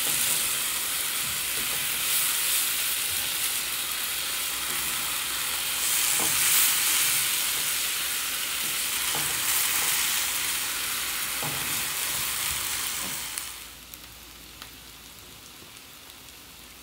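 Diced chicken and onion sizzling in a hot non-stick frying pan while being stirred with a slotted spatula, with a few faint knocks of the spatula. The sizzle cuts off suddenly near the end, leaving only a quiet background.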